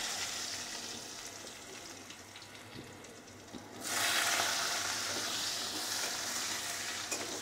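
Cubed potatoes sizzling as they fry in hot oil in a wok. The sizzle eases off, then jumps suddenly louder about four seconds in.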